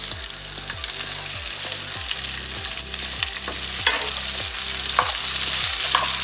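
Sliced onions dropped into hot oil in a frying pan, setting off a sizzle that grows louder as they spread, then stirred with a wooden spatula that knocks and scrapes against the pan a few times.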